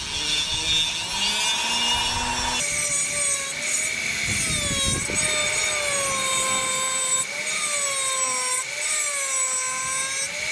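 Foredom flex-shaft rotary tool spinning a sanding drum against the wood: a motor whine that dips and rises in pitch again and again as the drum bites and eases off, over a rough sanding rasp.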